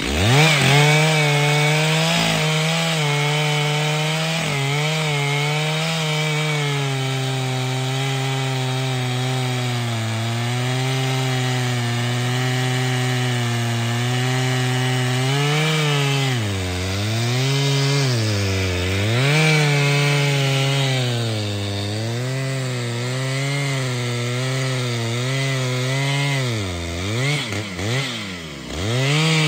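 Large two-stroke chainsaw cutting through trembesi wood at full throttle. It revs up sharply at the start, then holds a high, steady pitch, with the engine speed sagging and picking up again several times in the second half as the chain loads up in the cut.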